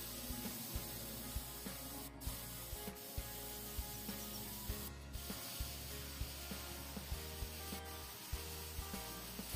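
Gravity-feed airbrush hissing steadily as it sprays paint. The air cuts off briefly twice. Underneath are a low hum and light ticks about twice a second.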